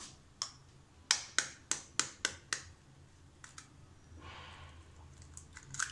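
Kitchen knife blade tapping an eggshell to crack it: a quick run of about six sharp taps, roughly four a second, with another tap near the end.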